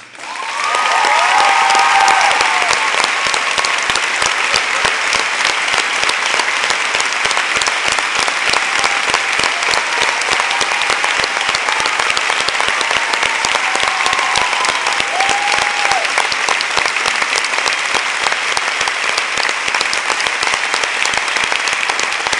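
Theatre audience and cast applauding: dense, loud clapping that swells up within the first two seconds and then holds steady, with a few cheering voices on top near the start and again about halfway through.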